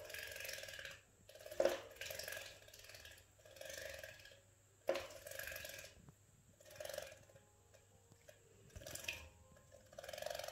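Java sparrow bathing in a small plastic bird bath: repeated short bouts of fluttering splashes as it beats its wings in the water, about one every second or so, with a couple of sharp knocks against the plastic.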